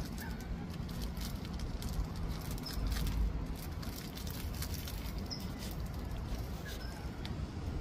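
Clear plastic bag packed with damp peat moss crinkling and crackling as hands press and mould it around a tree branch, over a steady low rumble, with a few short bird chirps.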